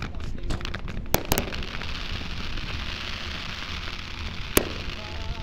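Aerial fireworks bursting: sharp bangs, two close together about a second in and another near the end, with a dense crackling hiss between them.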